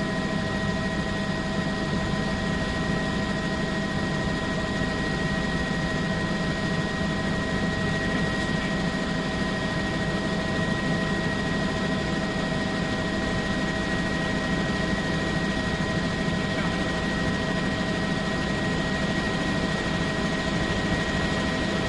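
Steady helicopter engine and rotor noise heard from the filming aircraft, with several steady whining tones over a constant low drone.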